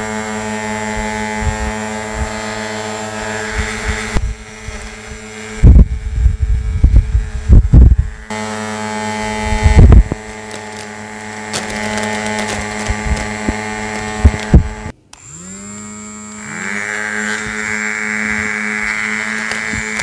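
Small battery-powered handheld fan motors running with a steady whine. Several very loud low rumbling bursts come between about 6 and 10 seconds in. About 15 seconds in the whine cuts out briefly, then spins back up, rising in pitch.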